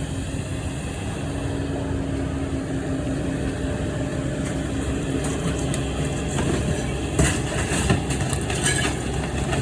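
Excavator engine running with a steady hum while a house wall is torn down. In the second half, wood and debris crack and crash, with two sharp bangs near the end.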